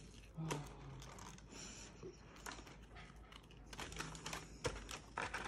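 Faint scattered clicks and crinkles of the paper liner in a cardboard takeout box as crumbs are picked out of it by hand, with small mouth sounds of eating and finger licking.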